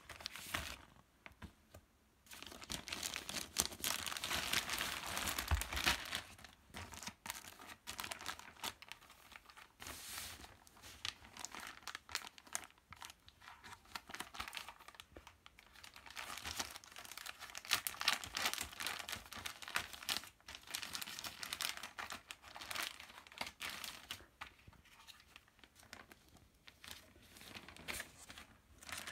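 Plastic bags and clear plastic packaging crinkling and rustling as they are handled and items are pulled out, on and off, loudest a few seconds in.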